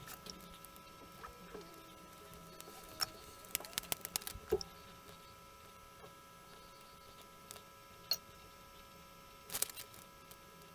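Faint, scattered small clicks and taps of a circuit board, soldering iron and clipped wire leads being handled on a cutting mat during hand soldering, with a cluster of clicks around the middle and another near the end. A faint steady hum sits underneath.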